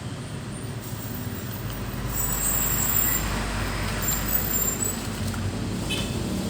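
A motor vehicle passing: a low rumble that swells about two seconds in and fades again about five seconds in.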